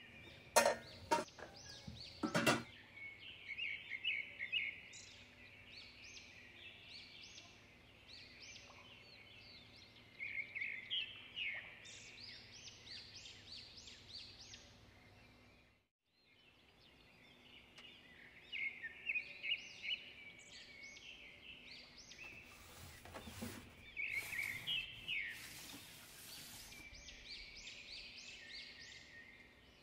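Small birds chirping over and over in short, high rising calls. Knocks and clinks of cookware being handled come near the start and again about two-thirds of the way through, and the sound drops out briefly halfway.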